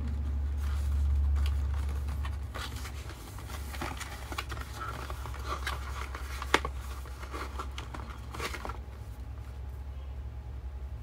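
Cardboard product box being opened and handled: scattered scraping and rustling of the paperboard flaps, with one sharp snap a little past halfway, then quieter as a bottle is drawn out.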